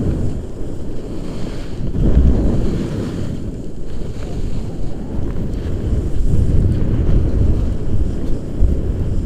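Wind buffeting the microphone of a camera carried by a skier moving downhill: a loud, low rumble that swells about two seconds in and again near the middle.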